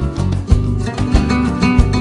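Background music: an acoustic guitar piece with a steady beat.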